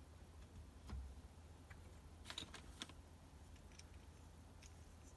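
Faint, scattered clicks and taps of LEGO plastic pieces being handled, with a cluster of clicks a little over two seconds in.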